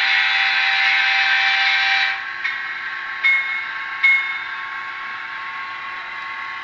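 Digitrax SDH164D sound decoder in a model F3A diesel locomotive sounding its horn through the small onboard speaker: a long blast that stops about two seconds in, then two short toots, over the steady sound of the simulated diesel engine.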